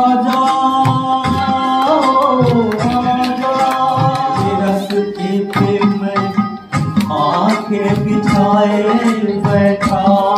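A man singing into a microphone over a recorded backing track with steady drum beats, amplified through a portable speaker; the voice holds long, wavering notes.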